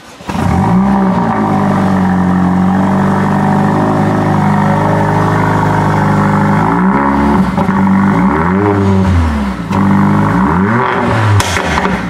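Mercedes-AMG CLA45's 2.0-litre inline four-cylinder engine starting with a brief flare, then settling to a steady idle. In the second half it is revved several times, each rev rising and falling quickly.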